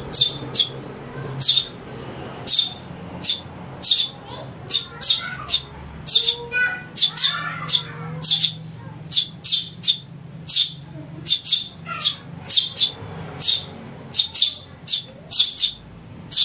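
Young Eurasian tree sparrows chirping: short, high, repeated chirps, about two to three a second, the kind of call played to lure wild sparrows.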